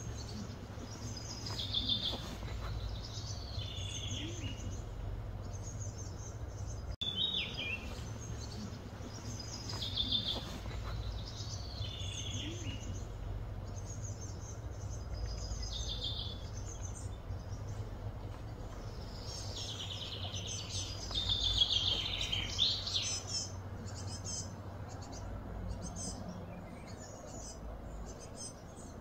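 Birds calling in short, repeated chirping phrases, with a busier run of chirps near the end, over a steady low background hum.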